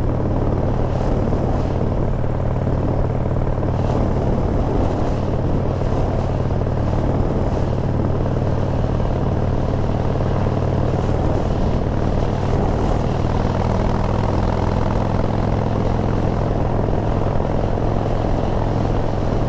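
Harley-Davidson V-twin engine running steadily at cruising speed on the move, with a constant low drone and rushing noise over it.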